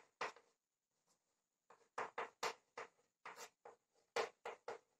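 Chalk writing on a blackboard: a series of faint, short taps and scrapes, about a dozen strokes, mostly from about two seconds in.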